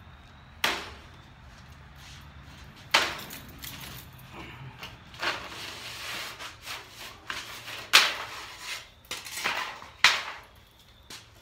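Wood-framed wire-mesh panels of a collapsible pen being lifted off and set down: sharp wooden knocks and clatters, four of them loud, with shorter scraping and rattling between.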